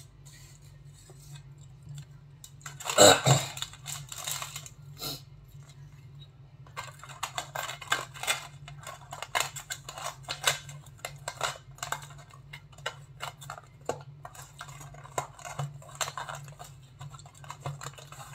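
Aluminium foil food tray crinkling and crackling in irregular clicks as its board lid is pressed on and the foil rim folded down over it. A single louder crackle comes about three seconds in, and a steady low hum runs underneath.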